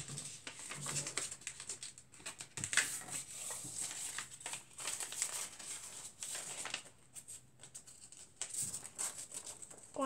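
Sheet of paper being folded and creased by hand into a paper airplane: irregular rustling and crinkling with short crackles.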